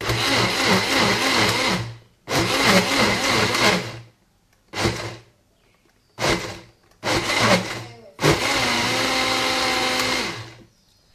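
Electric countertop blender run in six short pulses, puréeing boiled lentils; the last burst is the longest, about two and a half seconds.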